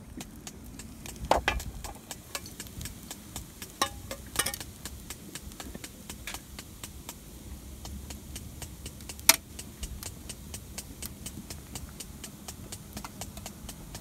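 Wood fire crackling and popping in an open camp grill, with a few sharp knocks and clinks from cookware being handled and set down, the loudest about nine seconds in.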